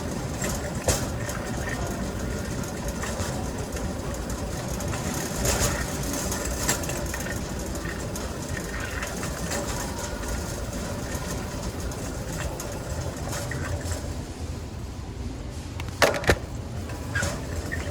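Steady rumbling background noise of a grocery store, with a few sharp clicks, two close together near the end.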